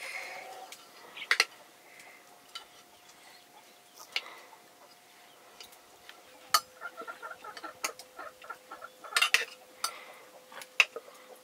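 Sharp clicks and taps of a knife working over a metal pot as food is cut, with a hen clucking in short runs.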